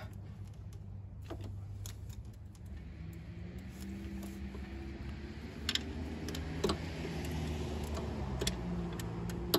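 Ratcheting wrench clicking in short, irregular strokes with light metal clinks as a 12 mm coil-pack bolt is worked loose, over a low steady hum.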